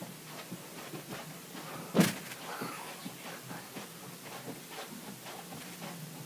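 Soft, irregular footfalls and clothing rustle of a child spinning around in place, with one louder thump about two seconds in.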